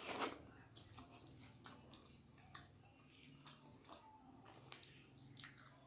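Faint chewing of momo dumplings, with scattered small mouth clicks about once a second after a brief louder noise at the start.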